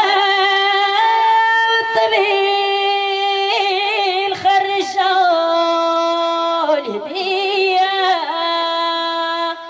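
A woman singing a traditional Jebli wedding chant ('aadiya) in long held notes with wavering, ornamented turns, breaking off just before the end.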